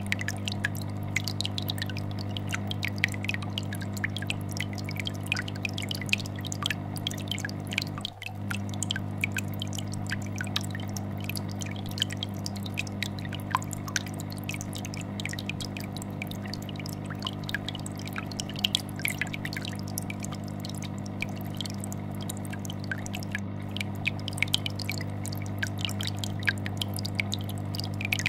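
Aquarium air bubbler sending up a constant stream of bubbles that pop and drip at the surface, over the steady low hum of a vibrating fish-tank filter. The sound drops out for a moment about eight seconds in.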